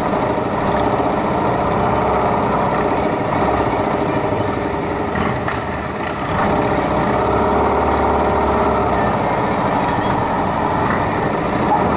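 Motorcycle engines running steadily, several at once, dipping briefly in loudness about six seconds in.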